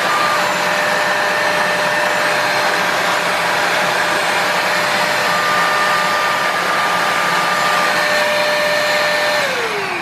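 Britânia Dust Off 1000 W upright vacuum cleaner motor running at full speed: a steady whine over a loud rush of air. About nine and a half seconds in it is switched off, and the whine falls in pitch as the motor spins down.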